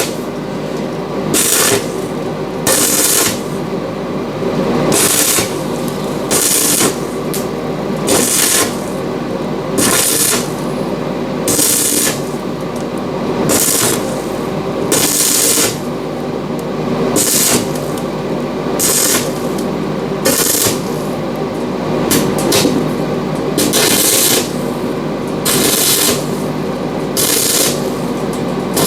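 Stick (arc) welding on the bus's door frame in short stitches: about twenty brief crackling, sizzling bursts, one every second or so, each as the electrode arc is struck and broken. An engine runs steadily underneath.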